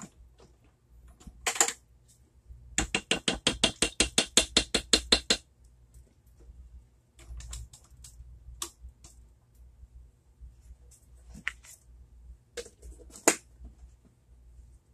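A rapid run of ratcheting clicks, about eight a second for some two and a half seconds, from a small mechanism being turned. Scattered light knocks and clatter around it, with one sharper knock near the end.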